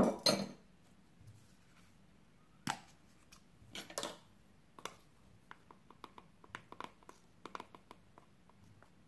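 Kitchen handling noises: a short clatter at the start as the metal mesh sieve is set aside, then a few scattered knocks and a run of light clicks and crinkles as a paper packet is handled over the bowl of flour.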